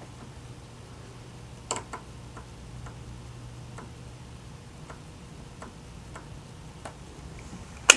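Faint, irregular clicks of CB radio controls being worked as the frequency is stepped, over a low steady hum that cuts off about halfway through. One sharp, louder click comes near the end.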